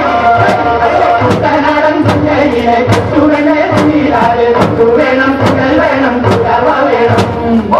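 Vanchipattu, the Kerala boat-race rowing song: a group of voices chanting in unison over a steady beat of a little over two strikes a second, the rhythm that keeps the oarsmen's strokes together.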